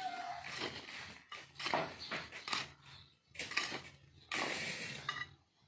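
A metal hand scoop scraping into gravelly soil and tipping it into a plastic polybag, in about five short scrapes roughly one a second.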